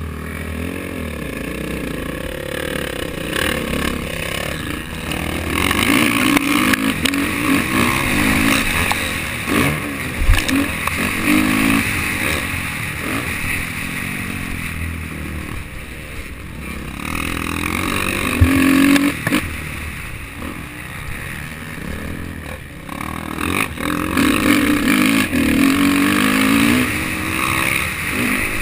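Dirt bike engine on a motocross track, revving up and falling back again and again as it accelerates and shifts, with two sharp knocks along the way.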